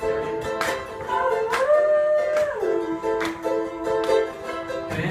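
Live acoustic song: a plucked string instrument strummed in a steady rhythm, with a melody line over it whose held note slides up and back down around the middle.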